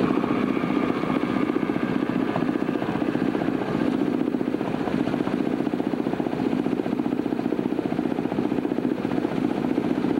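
A small engine running steadily, with a fast, even pulsing throughout.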